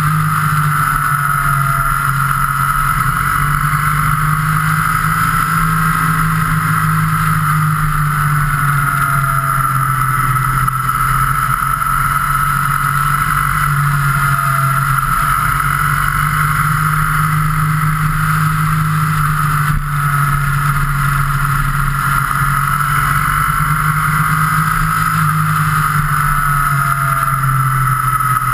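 Motorcycle engine running at a steady road speed, its note rising and falling gently with the throttle, under a constant rush of wind, heard from onboard the bike.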